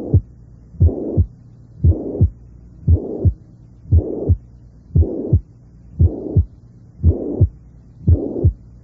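Recorded heart auscultation of mitral regurgitation: about one beat a second, each a sharp first and second heart sound with a blowing systolic murmur filling the gap between them.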